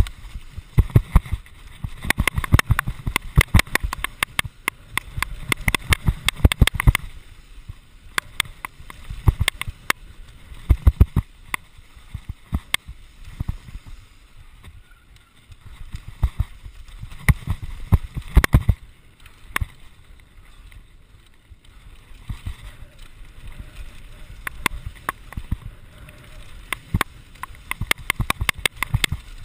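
Santa Cruz Nomad mk2 mountain bike clattering and knocking as it rides down a rough, dry dirt trail, the rapid rattle of the bike over bumps coming in loud clusters with quieter stretches between. Heard through a chest-mounted GoPro.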